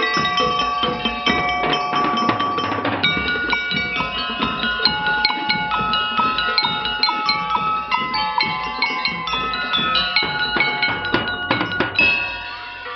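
A drum and lyre corps playing a tune: bell lyres ring out the melody over repeated drum strikes and cymbal. The playing stops near the end.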